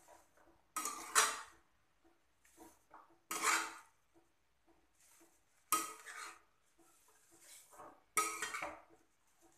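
Metal spatula scraping and knocking against a kadhai as sliced cabbage and potato are stirred and turned over. There are four main strokes about every two and a half seconds, with lighter scrapes between them.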